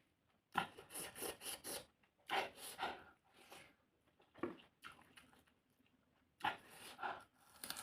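Close-up eating sounds of a person chewing fish: wet chewing and mouth smacking in four short bouts with brief pauses between.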